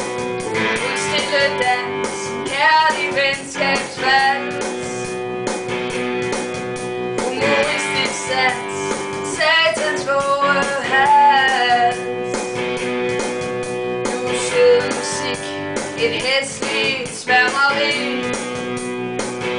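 Music: a guitar-backed song with held chords and a melody line that rises and falls above them.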